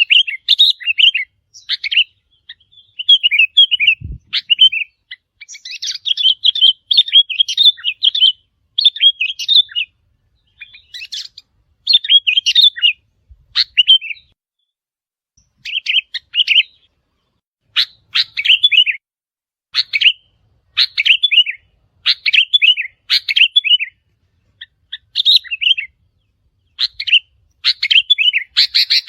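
Sooty-headed bulbuls calling: short, quick chattering phrases repeated over and over with brief pauses between them.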